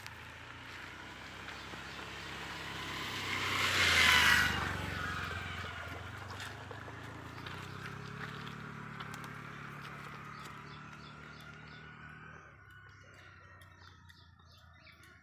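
A motor vehicle passing by: it grows louder to a peak about four seconds in, then slowly fades away, with its engine note dropping as it passes.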